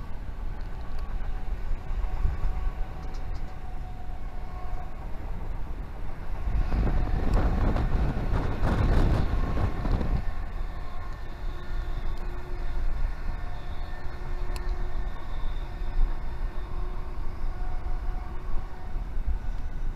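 Passenger train running along the line, heard from its window: a steady rumble of wheels on rails with a rushing noise that swells louder for a few seconds midway.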